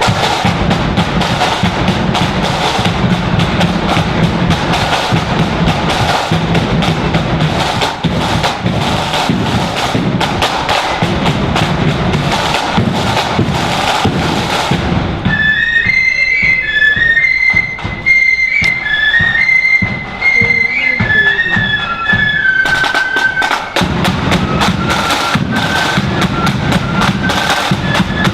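Marching flute band: side drums and bass drum play a dense, loud beat over faint flutes. About halfway through, the drums drop out and the flutes carry the tune alone. Near the end the drums come back in with them.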